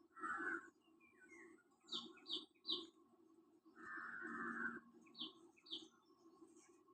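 Small birds chirping: quick high chirps, three in a row about two seconds in and two more after five seconds, with longer rasping calls at the start and around four seconds, over a faint steady low hum.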